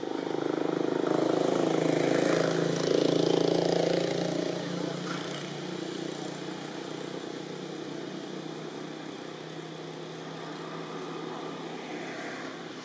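A motor vehicle engine running, loudest over the first four seconds and then settling to a quieter, steady hum.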